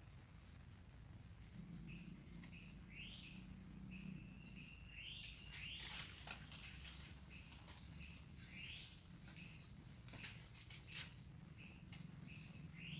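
Faint forest ambience: a steady high-pitched insect drone, with short rising chirps from birds or other small animals repeating every second or few.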